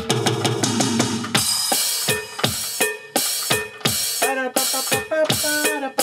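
A Roland Octapad SPD-30 struck with drumsticks, playing a cumbia pattern on a preset of timbales and electronic drum sounds. A fast, dense run of hits opens, then the beat settles into evenly spaced strikes about three a second, some electronic hits sliding briefly in pitch.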